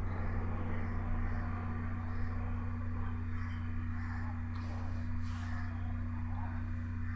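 Steady low hum under the recording, with a short hiss about five seconds in.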